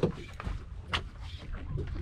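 Spinning rod cast and the reel starting its retrieve: two sharp clicks about a second apart, over a steady low rumble of wind and water.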